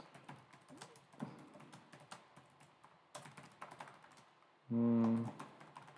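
Typing on a laptop keyboard: a quick run of light key clicks with a short pause past the middle. About five seconds in, a man gives a brief, steady low hum.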